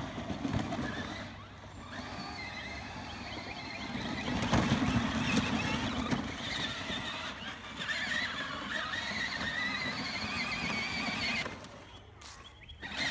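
Electric motor and gearbox of a child's battery-powered ride-on toy ATV whining as it drives across grass, the pitch wavering as it goes; the sound drops away briefly near the end.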